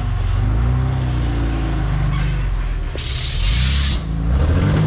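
A 4WD truck's engine running steadily at low revs while crawling. About three seconds in there is a sharp hiss lasting about a second, and near the end the engine revs up.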